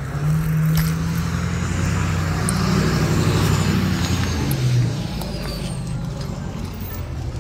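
A motor vehicle's engine running close by over a rush of traffic noise. It is strongest in the first few seconds and eases off after about five seconds.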